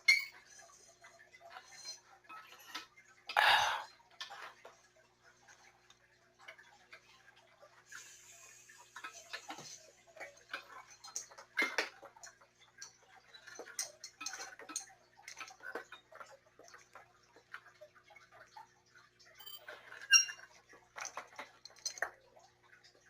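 Scattered light clicks and knocks of objects being handled, with a louder knock about three and a half seconds in and a brief faint hiss around eight seconds in.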